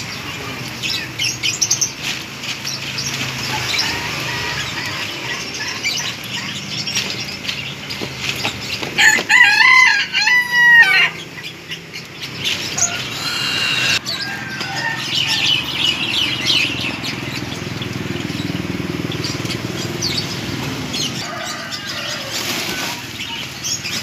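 A rooster crows once, about nine seconds in, the loudest sound here. Around it runs dry rustling of cardboard egg trays full of crickets being lifted and shaken into a bag.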